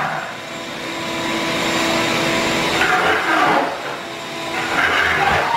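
Shop vac running, its wand sucking grinding dust off a bare concrete garage floor. The steady suction noise swells twice, about three and five seconds in.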